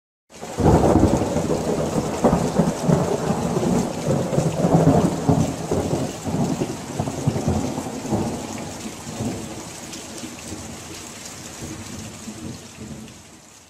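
Thunderstorm: thunder rumbling over steady rain. It starts suddenly, is loudest in the first half, and slowly fades out.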